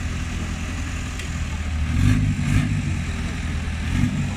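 Modified off-road 4x4's engine running under load on a steep climb, swelling with throttle about two seconds in and again near the end.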